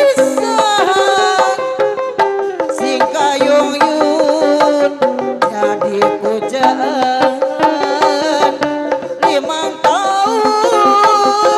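Live Sundanese benjang procession music: large hand-beaten drums keep up a dense rhythm under a high melody that slides between notes over a held low drone.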